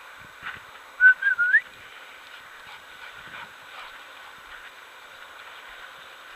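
A single short whistle, loud and close, about a second in: one wavering note lasting about half a second that rises at the end.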